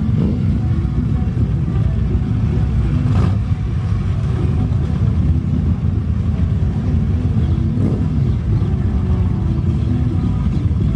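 Superbike engines running steadily, a continuous low rumble.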